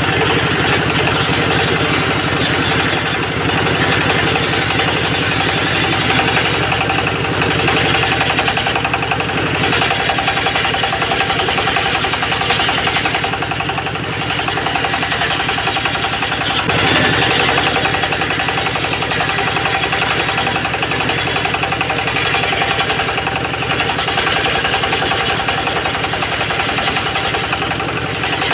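Engine-driven homemade circular sawmill running steadily, its disc blade sawing through teak.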